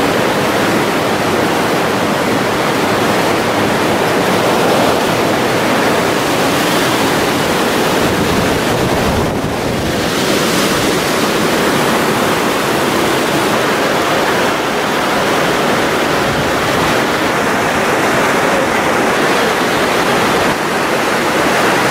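Steady loud rush of creek water running over rocks and small falls, dipping briefly about nine seconds in.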